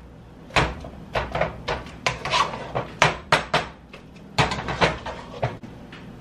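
A utensil knocking and scraping against a large metal cooking pot while stuffing is stirred in it: a string of about a dozen sharp clinks and knocks, irregularly spaced, stopping shortly before the end.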